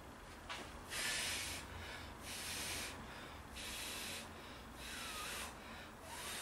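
A person blowing hard on a freshly welded steel exhaust pipe to cool it: five short breathy hisses of air, each about half a second, roughly one every second and a bit.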